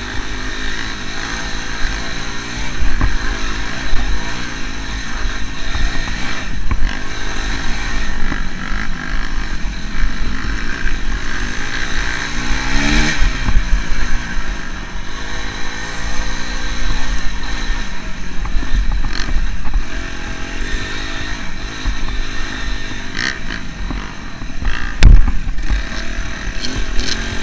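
Dirt bike engine running hard under load, revving up and down as the rider works the throttle over a rough, sandy trail, with clatter from the bike. A single sharp knock near the end is the loudest sound.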